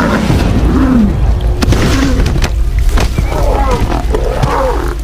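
Lionesses growling in short calls that rise and fall in pitch, with several sharp thuds, as they ambush a giraffe.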